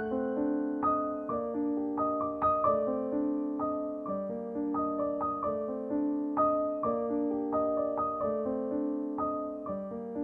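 Background solo piano music: a calm, flowing piece of struck notes that ring and fade.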